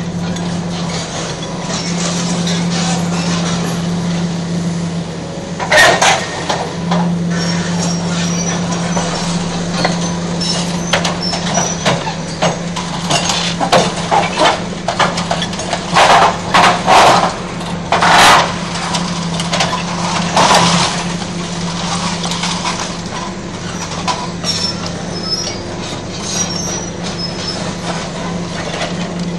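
Excavator demolishing a building: a steady engine drone under loud crashes and clanks as the grapple breaks concrete and tears steel, heaviest from about six to twenty-one seconds in.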